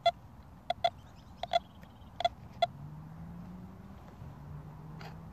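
Budget vidaXL metal detector giving short, mid-pitched beeps, about seven at irregular intervals in the first three seconds, then falling silent. The owner takes this beeping as a sign that he needs to set up its discrimination. A faint low drone comes in during the second half.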